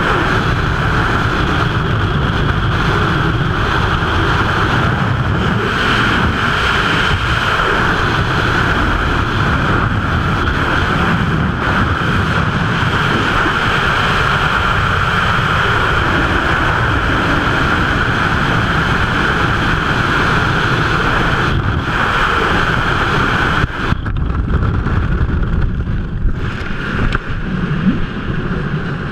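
Loud, steady rush of freefall wind buffeting the microphone during a skydive. A few seconds before the end the rush drops off suddenly as the parachute opens, leaving gustier, uneven wind and canopy fabric flapping.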